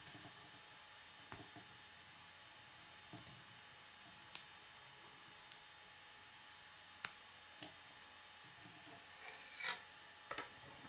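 Faint, scattered clicks and rubbing of plastic K'nex rods and connectors being handled and snapped together, one sharp click about seven seconds in and a quick run of clicks near the end.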